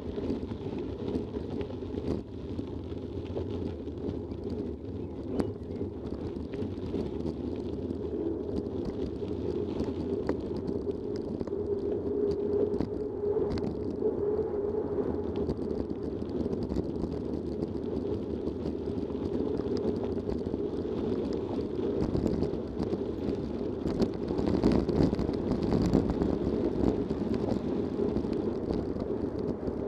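Mountain bike tyres rolling fast over a gravel path, a steady rumble with wind on the microphone and scattered clicks and rattles from bumps. The rumble gets louder and rougher about two thirds of the way in.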